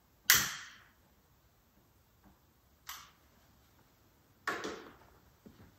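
A candle on an Advent wreath being lit: one sharp, loud strike a moment in that dies away over about half a second. Then come a few quieter knocks and a rustle, about three and four and a half seconds in.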